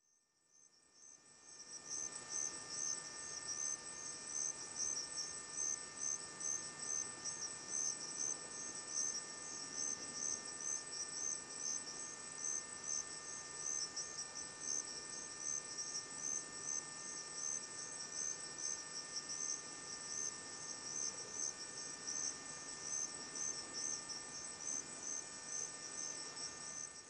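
Chorus of night insects chirping in a steady, even, high-pitched pulse, a few chirps a second, over fainter continuous high trills.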